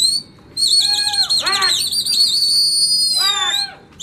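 Loud, high-pitched warbling whistle held for about three seconds, with lower swooping whistle notes under it about a second in and again near the end: a pigeon flyer whistling to keep the released flock flying.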